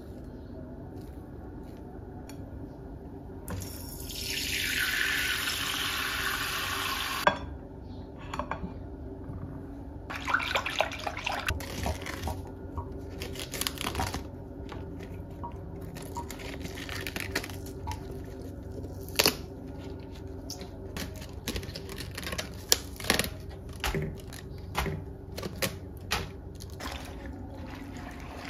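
A kitchen tap runs for about four seconds and shuts off. Then come crisp crackling and snapping as leaves are pulled off a head of iceberg lettuce, and wet splashing and rustling as the leaves are rubbed in a bowl of water in the sink.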